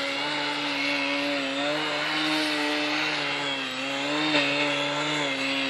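Electric motor and propeller of a radio-controlled aerobatic plane hovering nose-up in a prop hang, giving a steady whine whose pitch wavers slightly as the throttle is worked.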